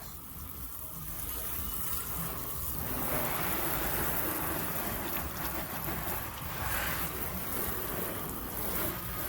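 Water spraying and splashing onto a car body, a steady hissing wash that swells through the middle and eases near the end.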